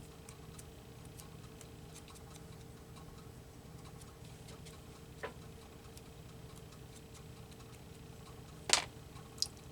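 Faint, irregular light taps and clicks of paper word strips being inked up by hand, with a sharper tap about five seconds in and two louder ones near the end.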